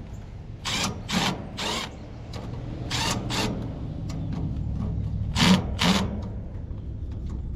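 Red cordless Milwaukee power tool run in short bursts on a fitting, about seven squeezes of the trigger in three groups, the loudest near the end, over a low steady hum.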